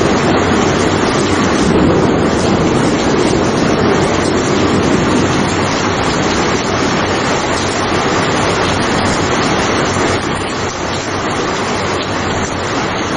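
Steady rainfall, a dense, even hiss that eases slightly about ten seconds in.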